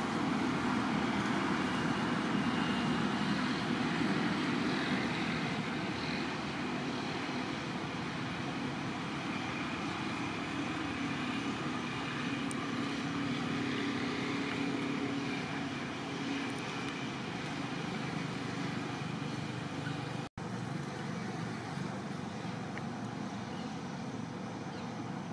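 Steady outdoor background noise, a fairly loud even hiss and rumble, that drops out for an instant about twenty seconds in.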